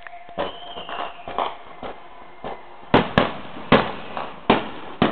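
Aerial fireworks shells bursting: a string of sharp bangs, lighter ones in the first couple of seconds, then five louder booms in quick succession from about three seconds in.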